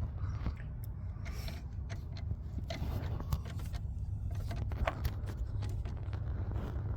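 Scattered light clicks, knocks and scrapes of hand work on car parts, over a steady low hum.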